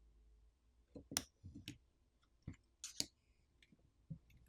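Faint, scattered clicks and small taps of a screwdriver and tiny metal screws being worked on a smartphone's battery cover, about half a dozen in all, the sharpest about one second and three seconds in.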